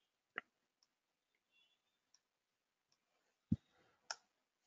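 Three sparse, sharp clicks from a computer mouse and keyboard in use: one a little after the start and two close together near the end, the first of those two the loudest.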